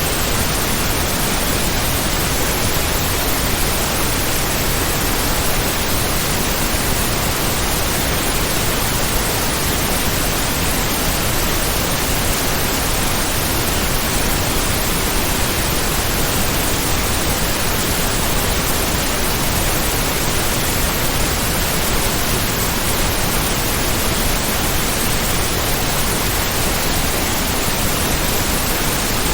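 Heavy rain, a steady, even hiss spread from low rumble to high treble with no single drops or changes standing out.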